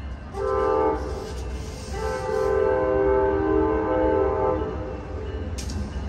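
Amtrak P42DC diesel locomotive's horn sounding a short blast and then a longer one of about two and a half seconds, several notes held together as a chord, as the train approaches.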